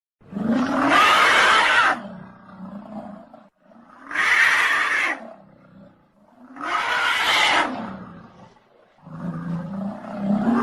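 Stock Hollywood Edge dinosaur roar sound effects: three loud roars of about two seconds each, separated by lower rumbling growls, with a fourth roar swelling near the end.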